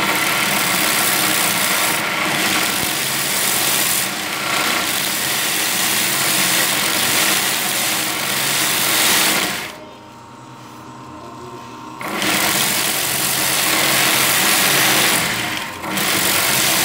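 Homemade belt sander driven by a sewing-machine motor, its abrasive belt grinding a steel knife blade in a steady rasp. About ten seconds in the blade is lifted off for two seconds, leaving only the quieter hum of the motor and belt, and it is eased off briefly a few other times.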